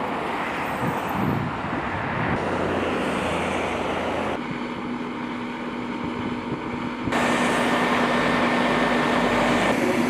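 Road traffic passing on a highway, then the steady hiss of a fire hose spraying water over burnt ground, which gets louder about seven seconds in, over a steady motor hum.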